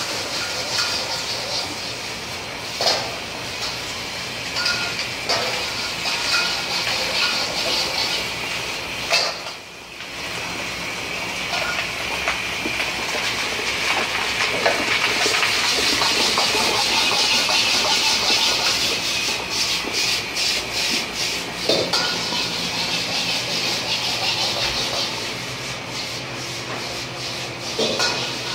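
Noodles sizzling and hissing in a wok over a high gas flame, swelling louder midway, with a few sharp metal knocks.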